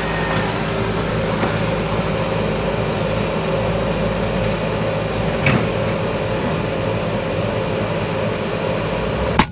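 A steady machine hum with several held tones runs throughout. Just before the end comes a single sharp shot from a silenced FX Wildcat BT Compact PCP air rifle in .22, firing a slug at a pigeon.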